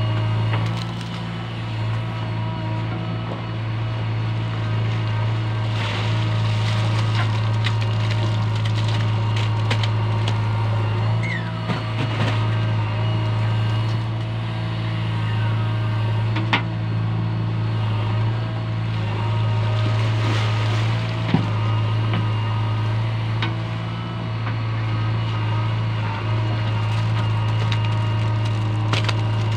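JCB 3DX backhoe loader's diesel engine running steadily while the backhoe digs wet clay and loads it, with a few sharp knocks from the bucket.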